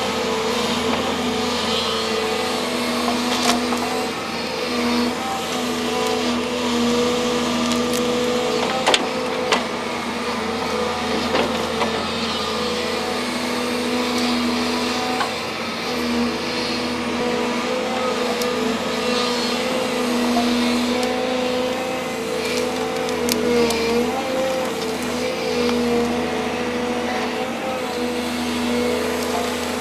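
Volvo excavator running steadily under load as it pulls tree roots from the ground, with several sharp cracks scattered through the sound of roots and wood snapping.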